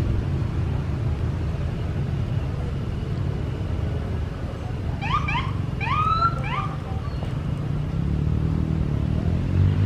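Steady low engine rumble of passing motorcycles and a large airport fire-rescue truck, growing a little louder near the end. About halfway through, a quick series of short rising chirps.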